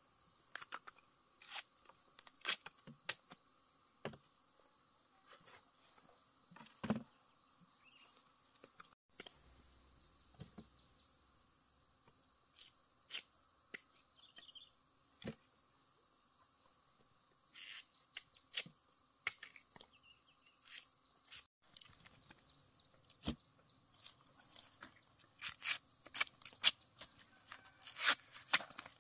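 Insects calling in a steady, high-pitched chorus, with scattered sharp clicks and knocks that come thicker near the end.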